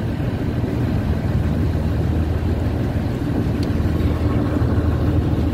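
Boat engine running steadily while under way, an even low drone.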